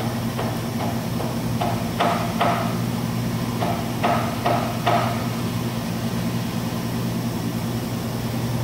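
2006 DMG DMU 100P five-axis CNC mill running its spindle, just asked up to 2,000 rpm, with a steady low hum. Over the hum, in the first five seconds, comes an irregular run of sharp knocks, often in pairs, that stops about five seconds in.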